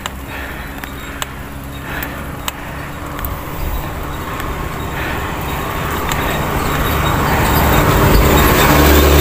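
Motorcycle engine approaching, growing steadily louder over the second half. A few sharp clicks sound in the first three seconds.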